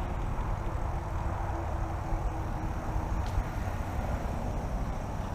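Highway traffic going by: a steady rumble and hiss, with a faint hum over the first three seconds or so.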